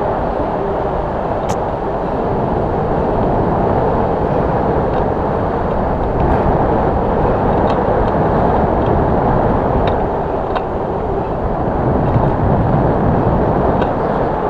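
Steady rush of wind over the microphone of a camera mounted on a hang glider in flight, with a few faint ticks.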